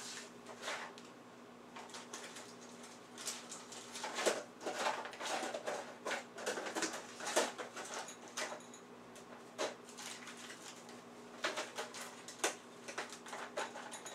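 Scattered light clicks, knocks and rustles of small parts being handled and rummaged through while a spare rubber drive ring is fetched, over a faint steady hum.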